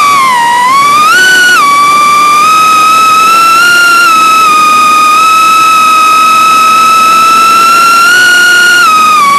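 High-pitched whine of an Eachine Lizard 105S micro racing quad's brushless motors and propellers, heard from onboard. Its pitch follows the throttle: it dips just after the start, jumps up and falls back about a second in, holds fairly steady, then rises slightly and drops near the end.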